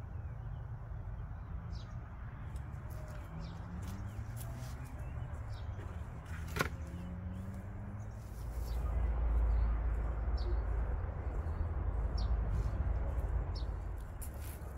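Outdoor ambience: short bird chirps here and there over a low rumble that grows louder about halfway through, with a single sharp click near the middle.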